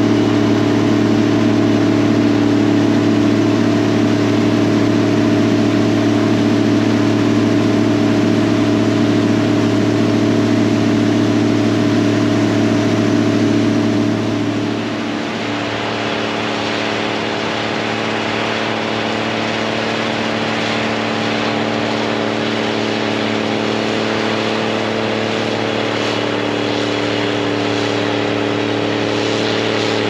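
Gleaner R72 combine running steadily at a constant pitch, first while unloading wheat through its auger. About halfway the sound dips a little and shifts, continuing as a steady engine note with more hiss as the combine keeps harvesting.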